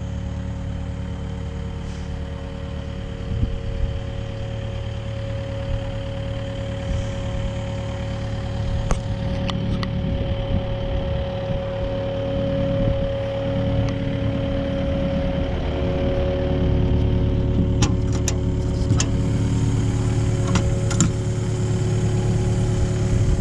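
Kubota excavator's diesel engine idling steadily with a steady whine over it. A few sharp clicks or taps come in the last few seconds.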